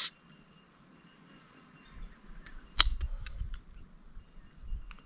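A few sharp clicks and small handling knocks, the loudest a single crisp click about three seconds in.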